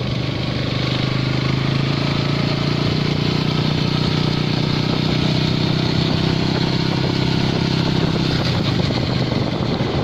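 Motorcycle engine running at a steady speed while riding, over road and wind noise; the engine tone fades slightly near the end.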